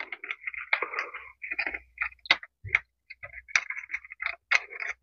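Close-up handling sounds of soldering wires onto an LED tube light's strip: irregular small ticks and scratchy rustles, with a few sharper clicks.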